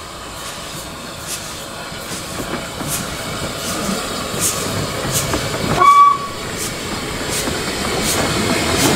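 Narrow-gauge steam tank locomotive working past with a train of coaches, its exhaust beating regularly about every 0.7 s and growing louder as it nears. A short whistle toot sounds about six seconds in.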